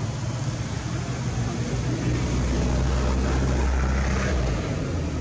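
Steady low engine hum, louder for about two seconds in the middle.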